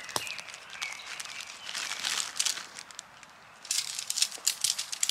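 Crinkling and crackling as tent gear is handled on a dry forest floor, ending in a quick run of clicks and rattles as the tent poles are unfolded.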